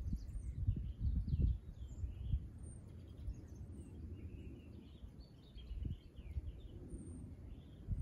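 Songbirds chirping and twittering faintly, with many brief high notes scattered through, busiest in the middle. A low rumbling noise comes and goes underneath, strongest in the first second and a half.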